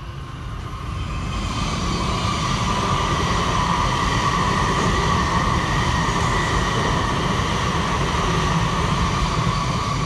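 Shinkansen bullet train passing at speed on the neighbouring track: a steady rushing rumble with a high hum. It builds up over the first two seconds and then holds.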